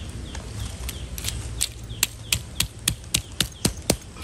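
Pestle pounding in a stone mortar while sambal is ground: sharp, even knocks about three to four a second, starting about a second in.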